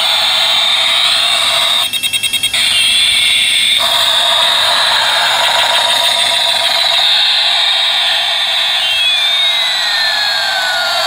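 Battery-operated toy A380 airliner playing its electronic jet-engine sound effect through a small speaker: a loud, thin rushing noise with no bass, and tones sliding up and down in pitch. About two seconds in comes a quick run of about six beeps.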